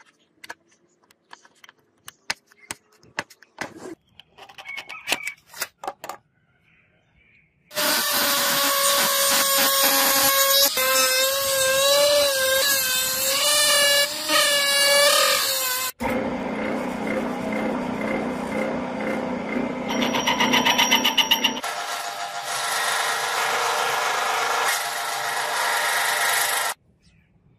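Scattered light clicks and taps of handling. Then a handheld rotary tool with a small cutting disc whines as it cuts slots into a brass disc, its pitch wavering under load. About sixteen seconds in it cuts off, and a metal lathe runs, turning the brass disc, until it stops shortly before the end.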